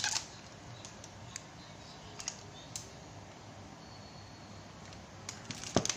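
Scattered light clicks and crinkles from handling a wrapped amplifier circuit board and its cardboard box, with a burst of clicks and a dull thump near the end.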